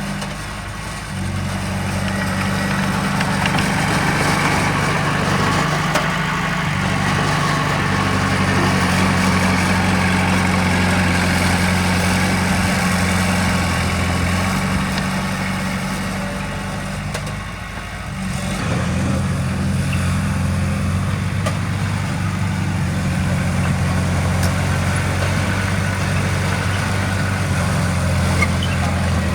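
Heavy diesel engine of earthmoving machinery running steadily, its note shifting a few times, with a brief dip in level about 18 seconds in.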